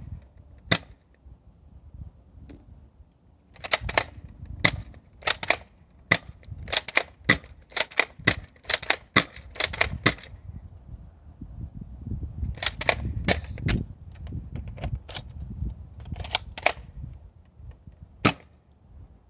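X-Shot foam dart blaster being fired over and over: a string of sharp plastic clacks, thickest in a quick run through the middle, then scattered ones, with the last near the end.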